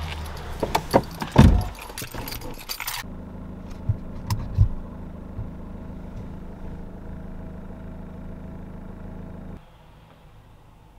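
Renault Kangoo van's engine idling steadily, with clatter of keys and handling inside the cab and a heavy thump about a second and a half in. The engine sound cuts off suddenly near the end.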